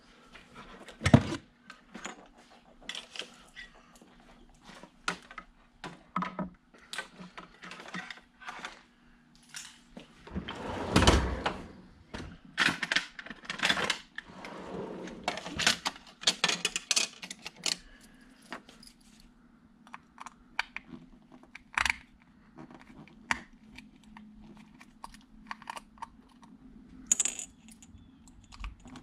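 Scattered clicks, taps and knocks of small hard objects being handled and set down, busiest and loudest in the middle, over a faint steady hum. Near the end, fingers pick at the cut-open plastic LED bulb.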